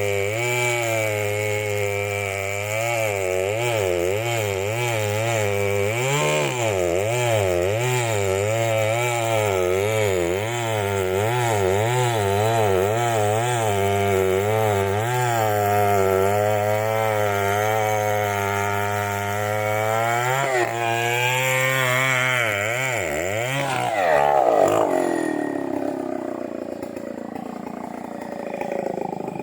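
Two-stroke Stihl chainsaw cutting into a large merbau hardwood trunk, its engine pitch wavering up and down as the chain loads and frees in the cut. About 24 s in the engine drops off, followed by a louder rushing noise that fades away.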